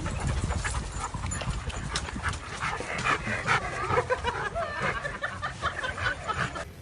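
A dog whimpering and panting, with many short wavering whines.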